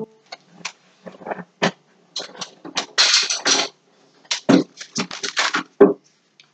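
Scattered short rustles, taps and scrapes of things being handled and moved about, with a longer rustle about three seconds in and a quick run of taps around five seconds.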